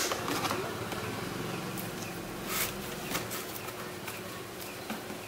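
Cardboard packaging being handled and opened: scattered light scrapes, rustles and taps, with a longer scrape about two and a half seconds in.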